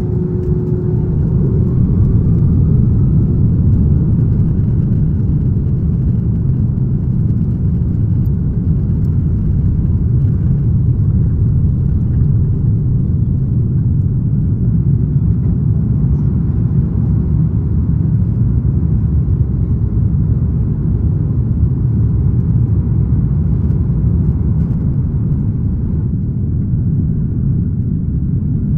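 Airbus A330-300 heard from the cabin during takeoff: the jet engines at takeoff power and the rolling of the wheels on the runway make a loud, steady low rumble that carries on through liftoff into the climb.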